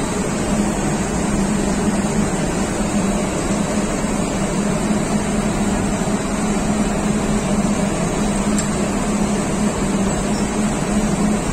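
Steady machinery noise: a constant low drone with a hum near 200 Hz under an even rushing noise, holding the same level throughout.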